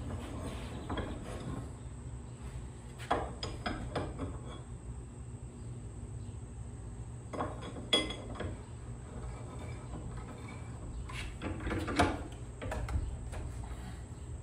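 Scattered metal clinks and knocks as a steel blade blank is set in a cast-iron bench vise and the vise is worked, with a few louder knocks spread through and a low hum underneath.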